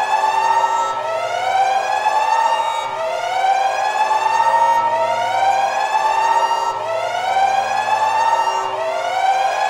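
Electronic siren-like alarm sound effect: a rising wail that repeats about every two seconds.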